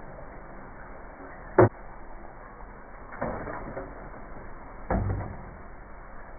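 Muffled kitchen handling noises over fries in a foil pan: a sharp click about one and a half seconds in, a short scraping rustle a little over three seconds in, and a heavier thud about five seconds in.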